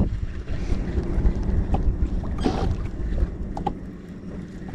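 Wind rumbling on the microphone over choppy lake water, easing about three seconds in, with small waves slapping against the boat's hull a few times.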